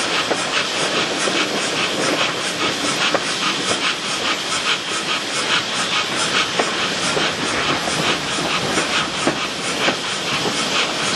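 GWR small prairie tank locomotive 4566 working under steam: regular exhaust chuffs about three a second over a steady steam hiss, as the train runs along.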